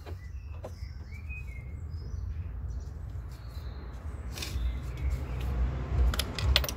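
Birds chirping faintly over a steady low rumble, with a few sharp clicks in the second half, the loudest near the end.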